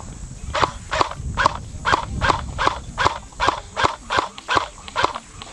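Running footsteps, a steady stride of about three steps a second for some four and a half seconds, with a low rumble of movement underneath.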